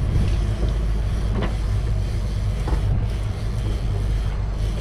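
Steady low drone of a sportfishing boat's engines running, with wind and water rushing.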